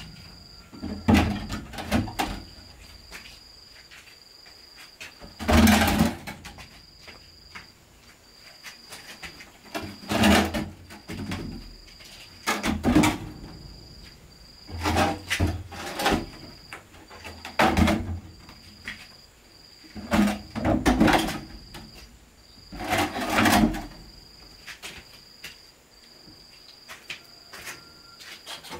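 Heavy knocks, as on wood, coming singly and in short groups every two to three seconds, over a cricket's high chirp repeating in short, even pulses.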